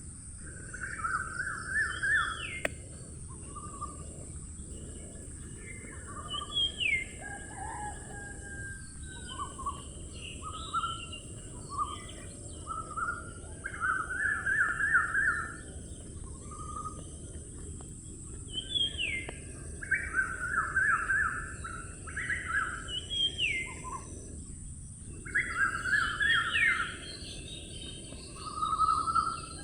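Songbirds singing in short, repeated phrases of quick trilled notes and slurred whistles that sweep up and down, over a steady high hiss.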